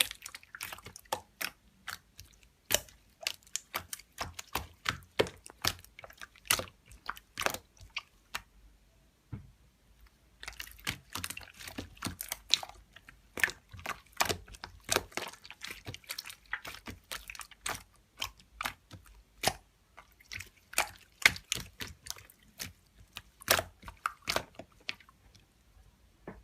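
Clear slime being squeezed and pressed by hand, making many irregular sharp pops and wet clicks, with a pause of about two seconds a third of the way in.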